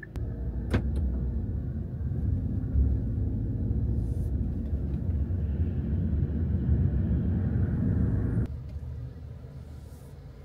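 Road and tyre rumble heard inside a car's cabin while driving, dropping abruptly about eight and a half seconds in to a quieter low hum. A sharp click about a second in.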